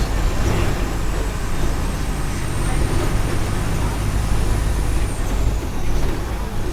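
Mercedes-Benz OF 1418 bus's diesel engine running with a steady low rumble. A thin high whine over it rises slightly, then falls away about five seconds in.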